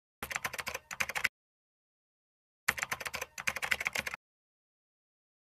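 Keyboard typing sound effect: two runs of rapid key clicks, the first about a second long and the second about a second and a half.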